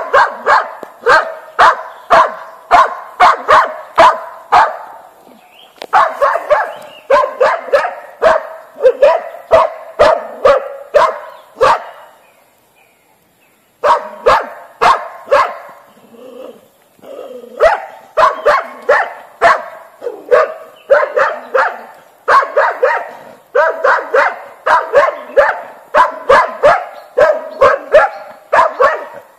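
A boar-hunting dog barking rapidly at a wild boar, holding it at bay. The barks come in steady runs of about two a second, and the barking breaks off for about two seconds some twelve seconds in.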